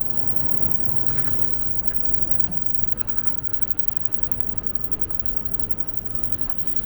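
City street ambience: a steady rumble of traffic with no single event standing out.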